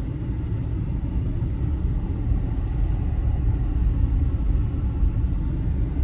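Wind buffeting the microphone: a loud, steady, uneven low rumble.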